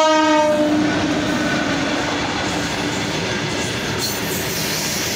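A train passes at speed. Its horn, already sounding, drops slightly in pitch and fades within the first second or two, leaving the steady noise of the train running by.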